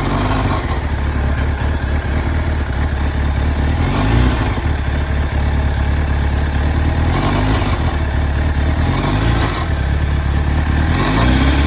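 Honda CBR1000RR (SC57) inline-four engine running, with several brief rises in revs. The engine has an abnormal noise that has been growing louder, the sign of a fault the owner is trying to trace, starting with the generator.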